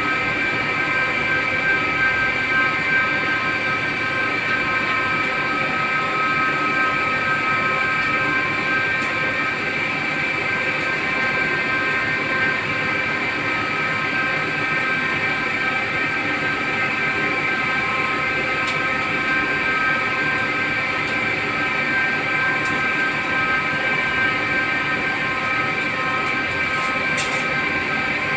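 CNC turret lathe taking a finishing cut on a car AC pipe fitting: the spindle turns steadily with a high whine of several steady tones over an even rushing noise, with a couple of faint ticks near the end.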